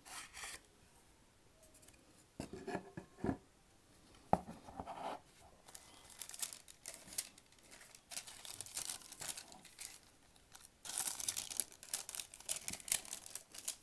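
Packaging on a wooden cigar sampler box being torn open and crinkled, in irregular rustling spells. There are a few knocks and a sharp click about four seconds in, and the rustling grows denser near the end.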